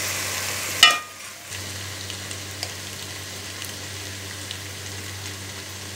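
Sausage slices and chopped vegetables sizzling as they fry in a stainless steel pan, with a single sharp metallic clink a little under a second in. After a short dip it settles into a steady, quieter sizzle with faint small ticks.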